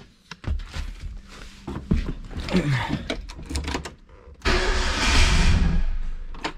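Renault 5 Extra van's C1J engine being cranked on the starter motor on its first start with a new MaxxECU ignition setup: it starts suddenly about four and a half seconds in, cranks for about two seconds and stops just before the end. Before that, a series of clicks and knocks as the van's door and cab are worked.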